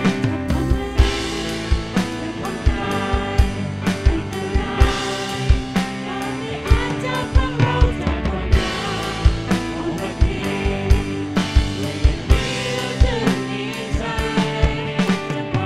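Live worship band playing a song: a woman singing lead into a microphone with backing vocals, over a drum kit keeping a steady beat, electric guitar and keyboard.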